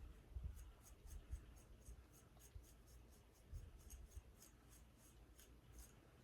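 Faint, quick scratching strokes on a dry, dandruff-flaked scalp, about three or four a second, with a few soft low bumps.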